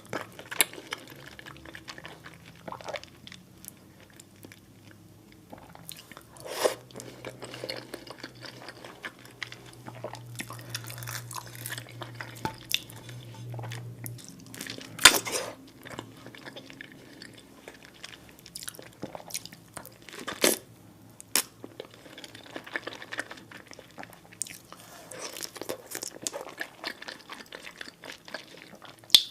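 A person chewing and biting food close to the microphone: irregular wet mouth clicks and smacks, with a few sharper, louder bites about a quarter, half and two-thirds of the way through.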